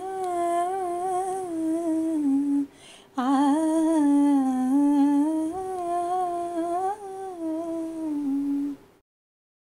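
A woman's voice humming a slow, wordless melody in long held notes, with a short break about three seconds in; it stops about nine seconds in.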